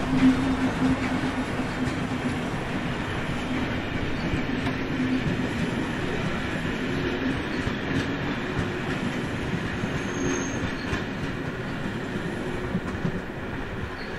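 Steam-hauled passenger train rolling past behind class 01 steam locomotive 01 202, its coaches running by on the rails. There is a steady tone near the start, and the sound eases off slowly as the train pulls away.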